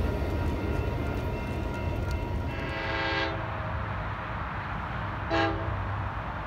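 Horn of an approaching train: one blast of under a second about two and a half seconds in, then a shorter, louder toot a little after five seconds. Underneath is the train's steady low rumble.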